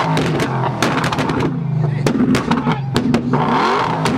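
Dodge Challenger's exhaust blaring at raised revs, with a run of sharp pops and crackles over the engine note, thickest a couple of seconds in.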